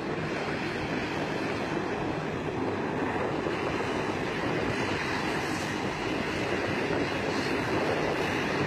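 Steady rushing noise of a distant twin-engine turboprop airliner's engines as it moves along the runway, mixed with wind on the microphone, growing slightly louder.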